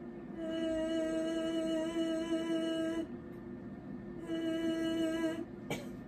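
A woman holds a steady vowel on one pitch twice, a long note of about two and a half seconds and then a shorter one of about a second, phonating with a rigid laryngoscope in her throat for a videostroboscopy exam. A faint steady hum runs underneath, and there is a brief click near the end.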